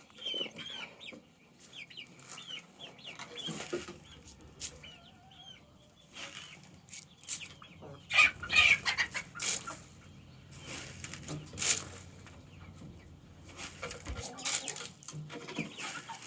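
A mixed flock of hens and young pullets clucking and making short chirping peeps, with scattered short taps and rustles throughout; the loudest burst comes about eight seconds in.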